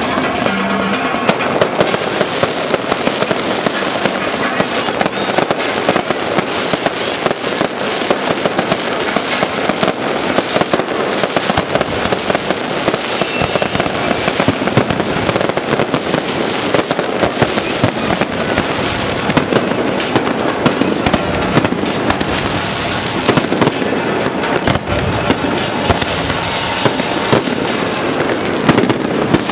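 Aerial fireworks bursting and crackling in a dense, continuous run of sharp pops and crackles.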